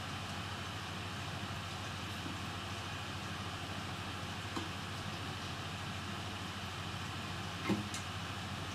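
Steady electrical hum and hiss, with a light click about halfway through and a sharper knock near the end.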